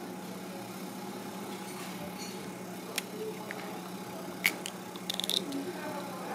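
Fingers prying apart a goose barnacle's shell plates: a sharp click about three seconds in, a louder one a second and a half later, then a brief crackle, over a steady low hum.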